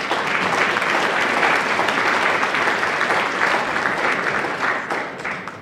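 Audience applauding: dense, even clapping that fades out near the end.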